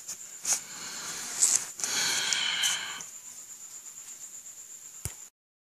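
A sheet of paper being handled and moved: a few knocks and a burst of rustling, then a click about five seconds in, after which the sound cuts off.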